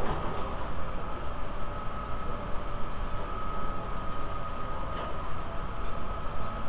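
A steady machine hum with a constant high whine, and a few light clicks near the end.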